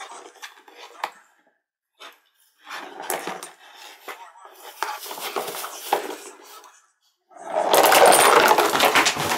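Cat pawing at a ball inside a homemade cardboard box toy: scattered clicks, then irregular scraping and clattering of paws and ball against the cardboard. About three-quarters of the way in, a much louder, dense rubbing noise starts and continues.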